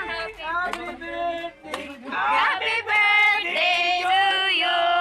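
A song with a woman's voice singing, holding long, wavering notes over music.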